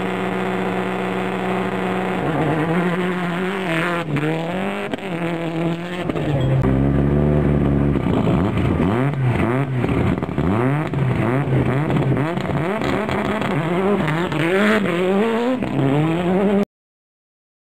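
Turbocharged rally car engines at a stage start. An engine is held at steady revs, then idles low, then is revved and driven off hard, its pitch rising and falling again and again as the car accelerates through the gears. The sound cuts off suddenly near the end.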